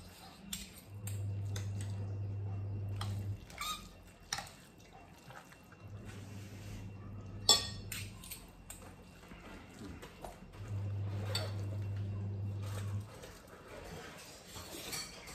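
Metal forks clinking and scraping on glass plates and a glass bowl while instant noodles are twirled and slurped, with one sharp clink about halfway through the loudest. A low steady hum comes and goes in stretches of about two seconds.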